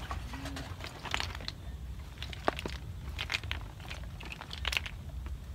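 Irregular crackling, rustling and clicking as a netting-covered fish trap with a wire frame is lifted and handled among pond plants, with a sharper click about halfway through.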